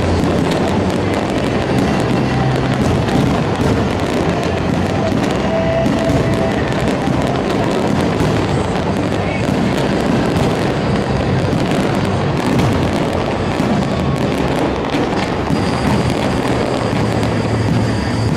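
Fireworks going off in a dense, continuous barrage of bangs and crackles with no gaps.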